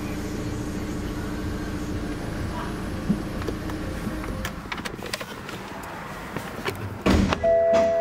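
BMW 320d's four-cylinder diesel engine idling, heard from inside the cabin, then stopping about four seconds in. Near the end there is a loud knock followed by a steady chime-like tone.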